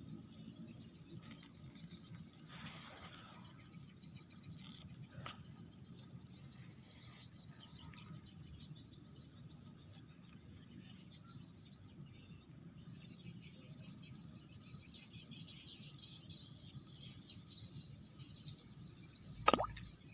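A dense chorus of insects, cricket-like, chirping in fast pulses that run on without a break over a steady high-pitched ringing. About half a second before the end comes a single short sharp sound that sweeps downward in pitch.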